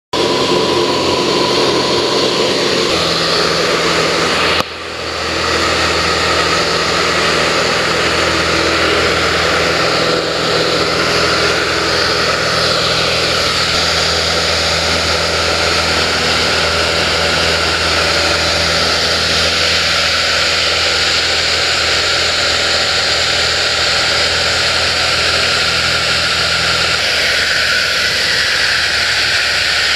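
A light propeller airplane's engine and propeller droning steadily, heard from inside the cabin. The sound drops out briefly about five seconds in and swells back, and the engine's low tones shift near the end.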